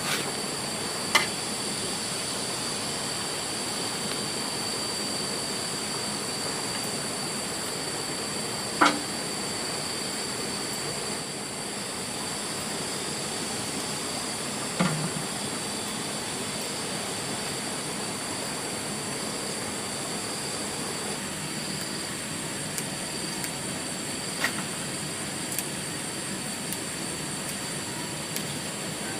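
Steady hiss with a thin, constant high-pitched whine, broken by a few single sharp knocks spaced several seconds apart.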